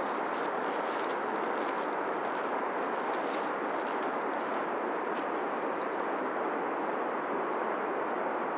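Meadow insects chirping in many short, high, irregular calls a second, over a steady rushing noise.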